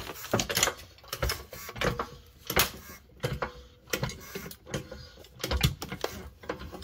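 Craftsman 3-ton hydraulic floor jack being pumped by its handle to lift the car. Each stroke gives a short burst of metallic clicks, at a steady one and a half strokes a second.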